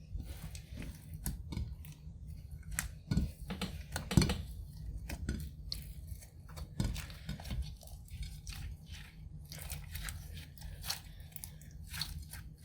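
Clear slime with makeup mixed in being squished and stretched by hand: irregular sticky crackles and small pops, with a louder squelch about four seconds in.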